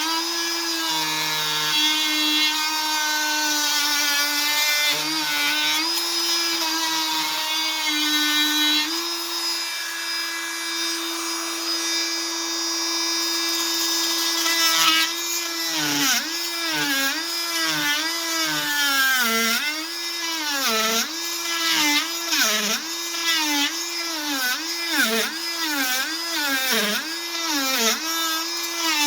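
Fein MultiMaster 500 cordless oscillating multi-tool running with a steady high whine. About halfway through, the pitch starts dipping and recovering roughly once a second as the blade bogs down under cutting load.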